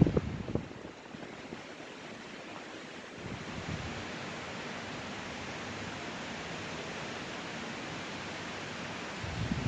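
Steady rush of wind, with gusts buffeting the microphone in low thumps at the start and again near the end.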